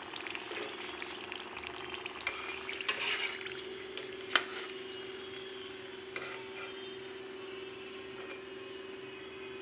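Gujiya pastries deep-frying in hot oil with a light, crackly sizzle, while a steel slotted spatula stirs and lifts them, scraping and clicking against the pan; one sharp metal tap about four and a half seconds in is the loudest sound. A steady low hum runs underneath.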